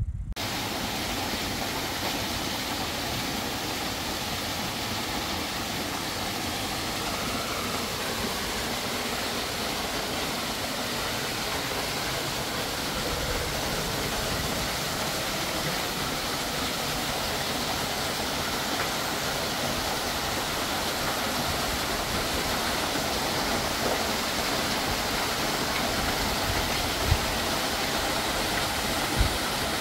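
Small waterfall spilling over rocks into a shallow pool: a steady, even rush of splashing water, with two brief thumps near the end.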